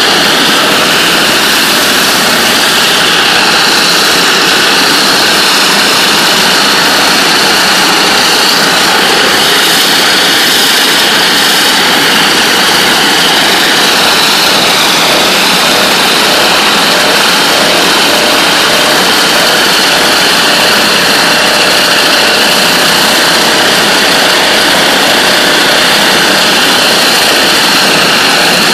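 NLB Spin Jet surface-prep head blasting water at 40,000 psi from its spinning nozzles against a floor: a loud, steady hissing roar.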